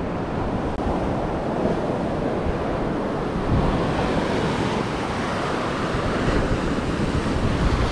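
Surf washing onto a beach, a steady rush of waves, with wind buffeting the microphone.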